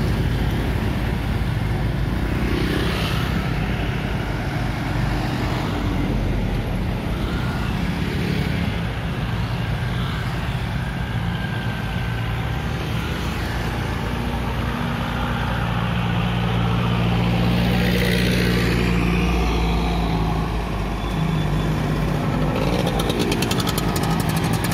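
Road traffic passing close by: motorcycle and scooter engines with cars and a small truck, a continuous engine hum that grows louder as vehicles pass through the middle stretch.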